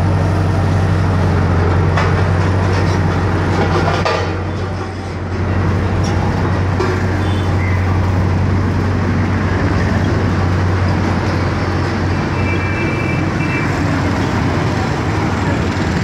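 Diesel engine of a Case tandem road roller running steadily as a low hum, growing fainter in the second half as the roller moves off, over steady road traffic noise.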